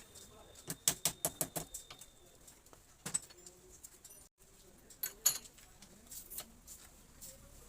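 A quick run of sharp clicks and knocks, about eight in a second, then a few single knocks, from a motorcycle rear monoshock being handled and worked by hand.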